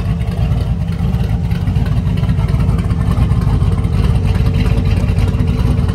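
A 1955 Chevrolet 3100 pickup's twin-turbo 383 cubic-inch stroker V8 running at a steady idle: a low, rapid exhaust pulse with no change in engine speed.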